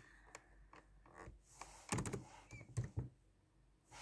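A few faint, short clicks and soft knocks spread over a few seconds in a quiet room.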